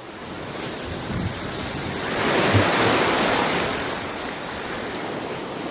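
Ocean surf: a wave breaks and washes up the beach, swelling to its loudest about halfway through and then easing off, with wind buffeting the microphone.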